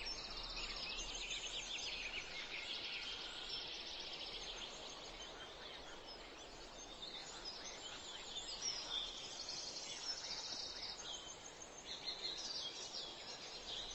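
A busy, high-pitched outdoor chorus of small birds chirping and trilling, one rapid trill after another, over faint steady background hiss.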